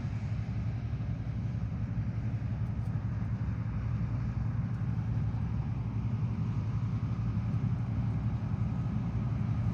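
John Deere 9750STS combine running while harvesting corn: a steady low drone that holds even throughout.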